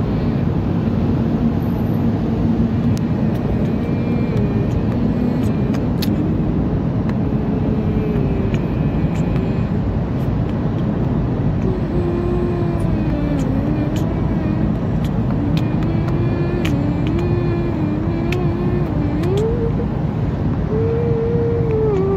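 Car cabin noise while driving through a motorway tunnel: a steady, loud rumble of engine and tyres, with a tone that wavers up and down in pitch.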